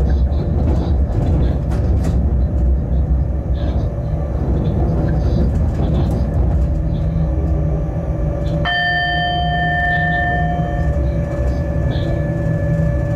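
Freight train heard from the locomotive cab while running: a steady low rumble of the loco and its wheels on the rails, with a few faint clicks. About two-thirds of the way through, a high ringing whine of several pitches starts suddenly; most of it stops two seconds later while one thin tone goes on.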